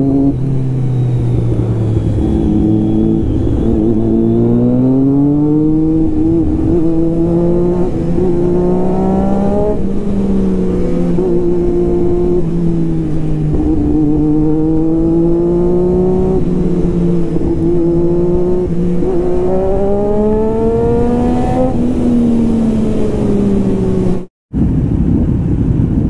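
A loud vehicle engine revs up and down over and over, its pitch rising and falling in slow glides. It cuts out for an instant near the end.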